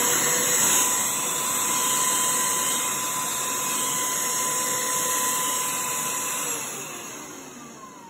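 Shark UltraCyclone (CH951) cordless handheld vacuum running steadily with a high motor whine over a rush of air. Its whine falls and the sound fades as the motor spins down near the end.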